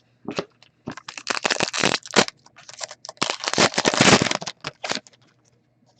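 Foil trading-card pack wrapper crinkling and crackling as it is handled and opened, in two main bursts about one and three seconds in, with smaller rustles between.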